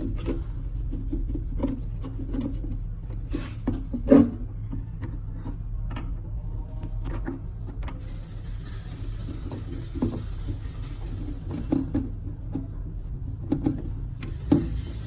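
Hands working on toilet cistern fittings, screwing in a new float rod and its rubber seal: scattered clicks and knocks of plastic parts over a steady low hum, with a faint hiss joining about halfway through.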